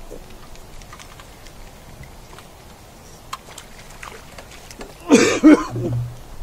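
A hooked crappie splashing loudly at the surface as it is lifted out of the water, a brief burst about five seconds in, after several seconds of faint scattered clicks.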